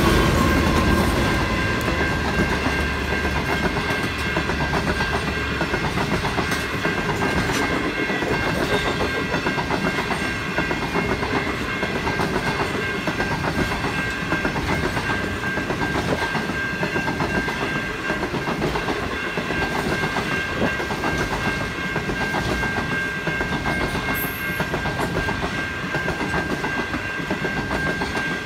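Long-distance passenger train passing over a level crossing. The trailing diesel locomotive's engine rumble fades in the first few seconds, then the stainless-steel carriages roll by with a rhythmic clickety-clack of wheels over the rail joints. Through it all runs a steady ringing from the level crossing warning bells.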